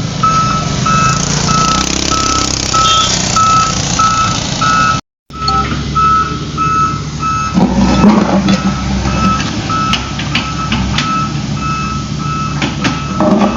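Truck's reversing alarm beeping steadily, a little under two beeps a second, over the low rumble of its engine. The sound drops out for a moment about five seconds in.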